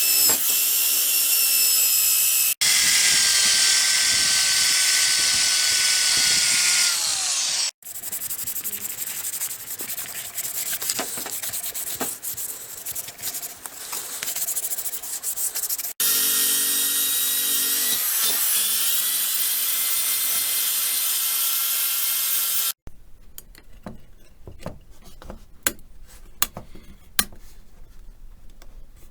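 Small electric power tool, drill-like, running with a high-pitched motor whine in several short bursts, one spinning down with a falling pitch about seven seconds in. In between comes a stretch of scraping and rubbing against a part. Near the end it gives way to light clicks and taps of hand work.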